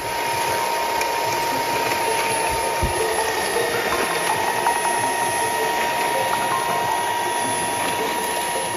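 Handheld electric paddle mixer running steadily, its paddle stirring resin binder in a plastic tub, with a steady motor whine.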